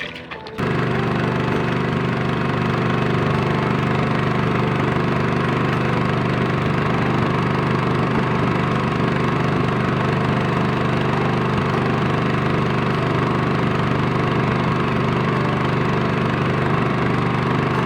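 A small boat engine cuts in suddenly about half a second in and then runs at a steady, even speed.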